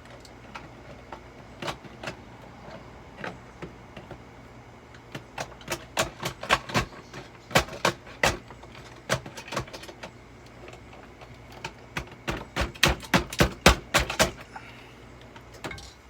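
Runs of sharp, irregular knocks and clatters of hard objects striking each other, coming in dense bursts from about five to nine seconds in and again from about twelve to fourteen seconds in.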